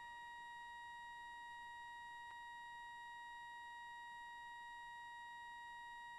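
Very quiet apart from a faint, steady high-pitched tone with overtones and a single faint tick about two seconds in.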